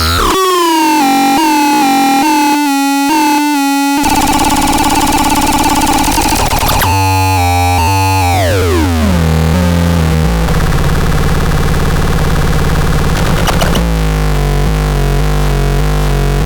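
Synthesizer playing a run of short notes, each dropping slightly in pitch. About four seconds in it changes to a harsh, buzzing tone, which sweeps steeply down in pitch around eight seconds in and settles into a low buzzing drone that changes texture near the end.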